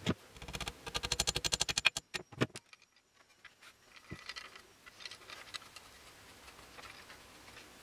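Handling of a steel-headed axe with a wooden handle while a leather strip is wound around the handle: a rapid rattle of clicks for about a second and a half, a few single knocks, then soft rustling and light clicks.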